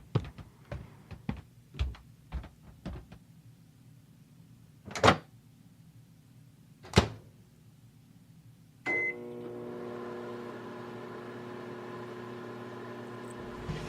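Microwave oven being started: several light taps, then two sharp clacks. About nine seconds in comes a short beep, and the oven starts running with a steady hum, heating a microwavable water bottle.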